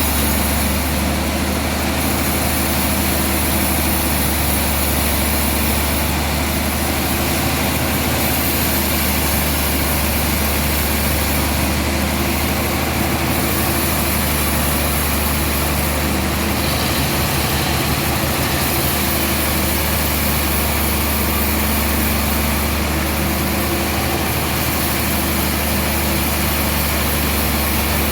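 Sawmill machinery running steadily, a loud, even mechanical drone with a strong low hum.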